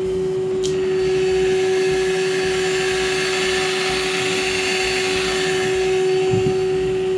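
Proxxon MF70 micro milling machine running with a steady whine inside its foam-lined enclosure. About half a second in, the front panel is taken off and a brighter, hissier whine comes through. Around six and a half seconds the panel goes back on with a soft thump and the sound is muffled again.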